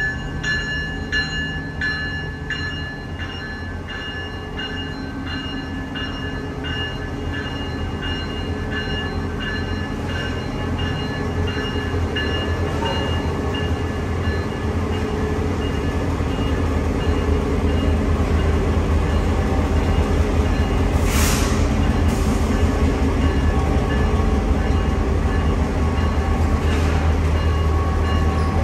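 EMD GP38-2 diesel locomotive idling, a steady low drone that grows louder as the locomotive gets closer. A metallic ringing repeats about twice a second and fades out in the first few seconds, and a short hiss of air comes about two-thirds of the way in.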